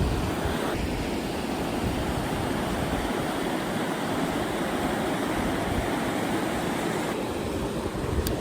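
Steady rushing noise of river water, with wind buffeting the microphone in uneven low rumbles.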